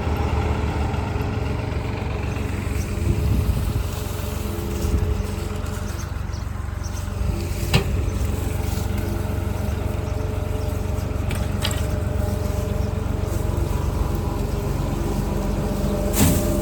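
Tractor engine running steadily at a fixed speed, driving a feed mixer wagon that is mixing sweet corn. Three sharp clicks stand out, near the middle and near the end.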